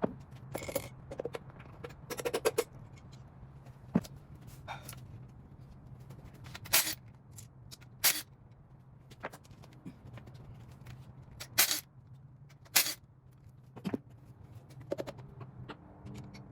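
Irregular sharp knocks and short scrapes, as from metal tools and parts being handled during a small-block engine teardown, over a steady low hum. The strongest knocks come at uneven intervals, about a second or more apart.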